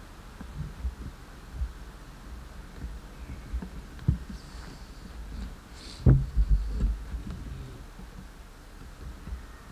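Handling noise from a handheld camcorder's built-in microphone: irregular low thumps and bumps as the camera is carried and moved, with a loud bump about six seconds in.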